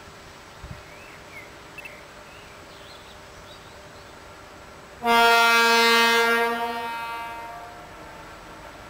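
Railway locomotive horn sounding one long blast about five seconds in, a single loud note that holds for about two seconds and then fades away.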